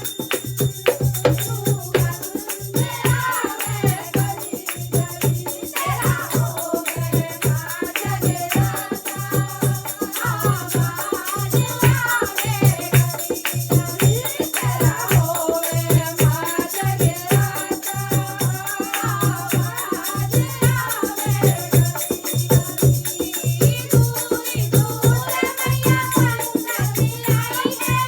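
Hindi devotional bhajan music: a bending melody over a steady drum beat, with jingling percussion like a tambourine.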